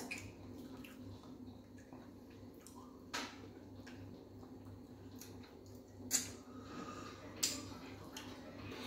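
Quiet eating by hand of fufu and fish in light soup: faint squishing of soft food between the fingers, with three short sharp clicks about three, six and seven and a half seconds in, over a low steady hum.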